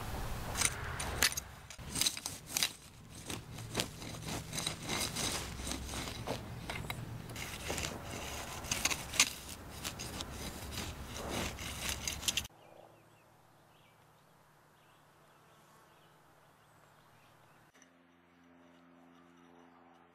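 Swoe hoe blade scraping and scuffing through dry, crusted soil and small weeds in quick irregular strokes. About twelve and a half seconds in, this cuts off abruptly to a faint steady hum.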